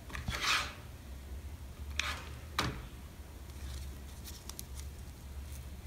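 Faint rustling and scraping of grosgrain ribbon being wrapped around the middle of a small satin bow by hand, with two short sharp scrapes about two seconds in, half a second apart, over a low steady hum.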